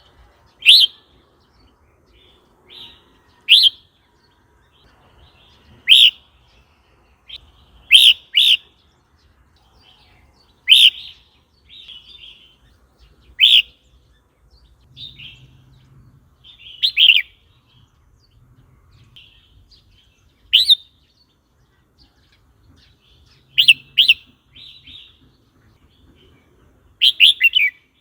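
Red-whiskered bulbul calling: short, loud chirping notes every two to three seconds, some in quick pairs and a quick run of three near the end, with softer notes in between.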